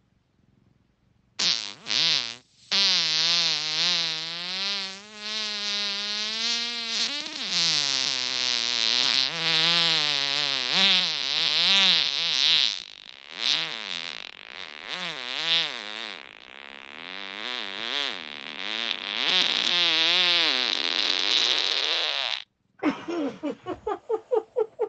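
A very long human fart of about twenty seconds: a pitched tone that wavers up and down, breaking off briefly a few times. It ends in a quick run of short sputtering pops, about five a second.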